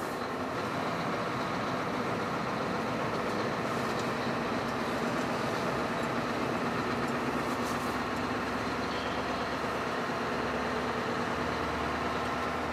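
Scania V8 truck engine running steadily under way, heard from inside the cab.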